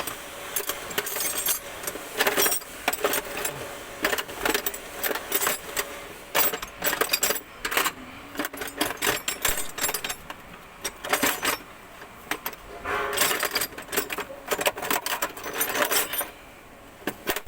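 Irregular metallic clinks, taps and clatter of hand tools and small metal parts while a diesel fuel feed pump is being taken apart.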